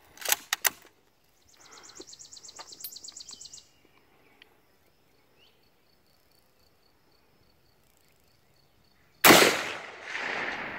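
A single Mosin-Nagant rifle shot about nine seconds in, followed by a long echoing tail. It is preceded by a few sharp clicks at the start and a brief fast, high chattering around two to three seconds in.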